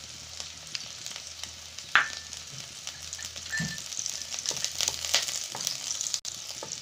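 Mixed vegetables sizzling in a wok as a spoonful of ghee melts in, with taps and scrapes of a wooden spatula. There is one sharp click about two seconds in, and the sizzle grows louder about four seconds in.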